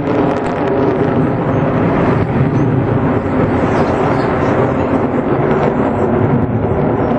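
Jet engines of four F/A-18 Hornets flying overhead in diamond formation, a loud, steady rumble.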